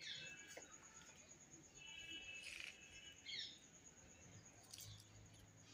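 Faint bird chirps and short calls against a quiet background, with a thin, evenly pulsing high tone throughout.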